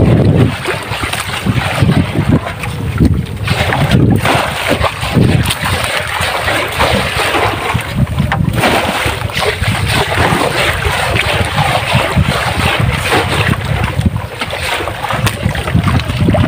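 Wind buffeting the microphone over splashing seawater, in loud, irregular gusts of rumble and hiss.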